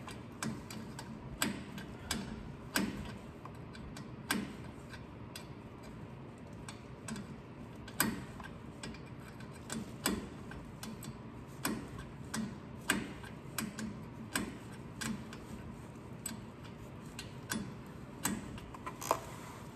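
A 1/2-inch open-end wrench clicking on the driveshaft bolts as they are tightened down a little at a time: a long run of short, sharp clicks at irregular spacing, roughly one every second.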